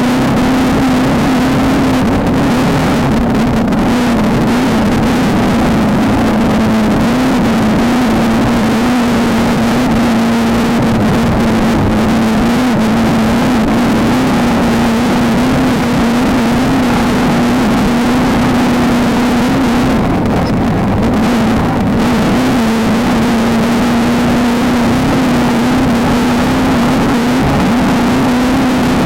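Off-road race car's engine running hard at a fairly steady high pitch that wavers slightly up and down, under a constant loud rushing noise.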